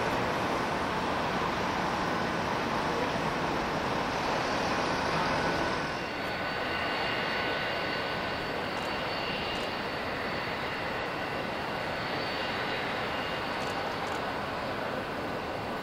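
Jet airliner engines running as the aircraft taxi: first an Airbus A320-family jet's steady engine noise, then, after a sudden change about six seconds in, a four-engined BAe 146-family jet with a steady high whine over the noise.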